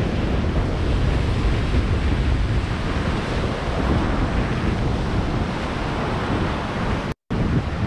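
Wind buffeting the microphone over the wash of ocean surf against a rock ledge. The sound drops out completely for a split second near the end.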